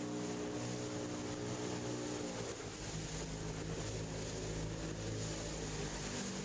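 Motorboat engine running steadily, its note shifting about two and a half seconds in, with wind and water hiss over it.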